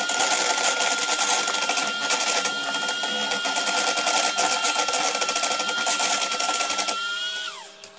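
Electric hand mixer whisking mayonnaise in a stainless steel bowl, its motor running with a steady high whine. Near the end it is switched off and the whine falls away in pitch.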